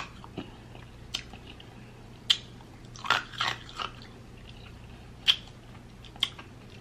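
Close-up mouth sounds of a person eating: wet lip smacks and chewing clicks, scattered at uneven intervals, with a faint steady hum under them.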